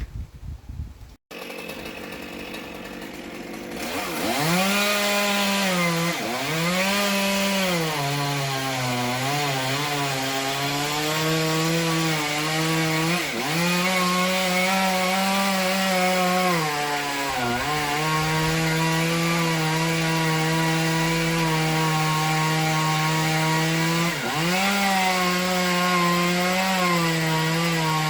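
Two-stroke chainsaw cutting into a silver maple, starting about four seconds in and running at high revs. Its pitch sags several times as the chain bogs under load in the wood, then picks back up.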